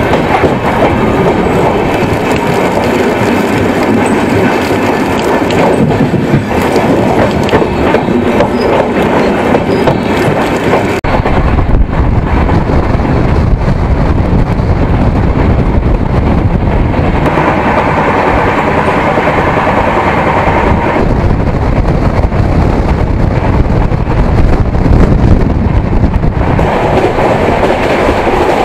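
Patna–Howrah Jan Shatabdi Express running on the track, heard from aboard the train: a loud, steady rolling noise of wheels on rails. About eleven seconds in the sound turns deeper and duller.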